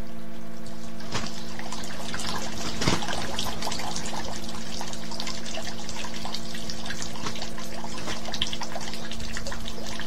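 Water trickling and bubbling steadily, a dense run of small drips and splashes, over a low steady hum.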